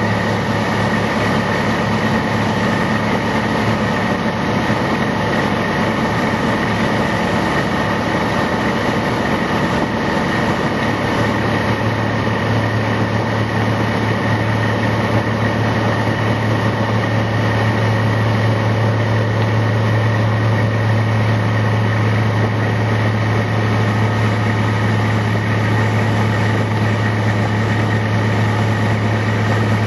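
1957 Century wooden boat's inboard engine running steadily at speed, a low even drone that grows a little stronger partway through, over the rush of water from the wake.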